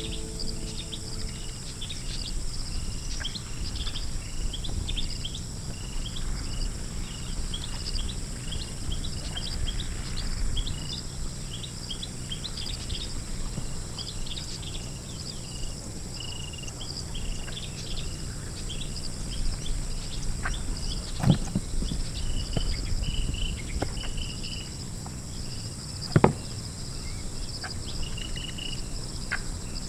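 Outdoor countryside ambience: a steady high insect drone, many short bird chirps, and a low background rumble. A few sharp knocks are heard in the second half.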